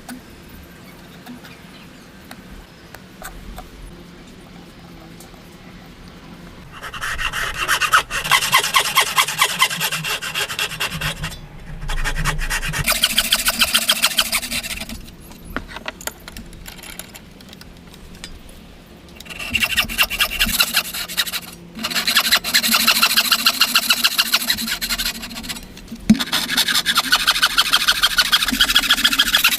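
A hand tool working wood in rapid back-and-forth scraping strokes, in five bursts of a few seconds each after a quieter start.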